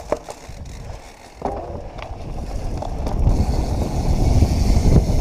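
Santa Cruz Hightower mountain bike riding over rough dirt and rock: the tyres rumble and the bike clatters. The sound grows louder from about a second and a half in and becomes a heavy rumble in the second half.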